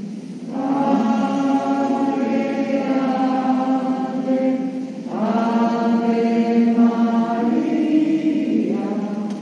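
A hymn sung slowly in long held notes, with one phrase starting about half a second in and the next about five seconds in.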